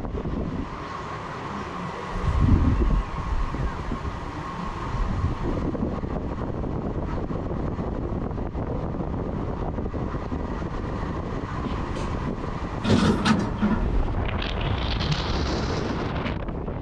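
Free-fall tower ride: wind buffets the microphone at the top while a faint steady tone hums. About three-quarters through, a clatter sounds and a hissing rush of air follows as the gondola drops down the tower.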